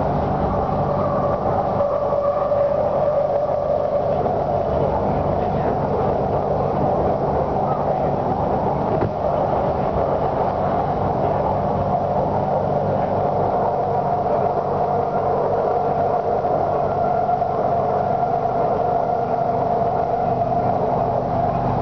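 Inside a moving BTS Skytrain electric train car: steady running noise with a low hum and a held whine that drifts slightly higher in pitch as the train runs on.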